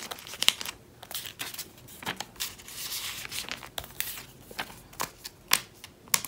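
Paper filler cards being slid into the pockets of clear plastic nine-pocket binder sleeves: plastic crinkling and paper rustling, with scattered sharp clicks.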